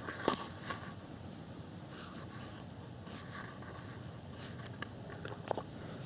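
Handling of a small plastic bait box: light rustling and scraping as fingers pick through the bait inside, with a few small clicks of the plastic lid, one just after the start and a sharper one about five and a half seconds in.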